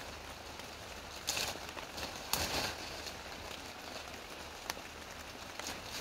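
Steady rain falling on forest foliage, with two short bursts of rustling about a second and two and a half seconds in, and a single sharp tick near the end.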